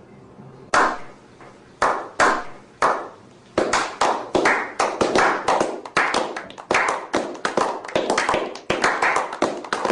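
A series of sharp slaps: a few widely spaced strikes, then quickening to about three a second.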